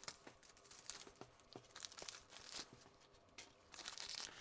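Thin plastic packaging crinkling and rustling in the hands, with scattered light clicks; the crinkling grows louder in the last second.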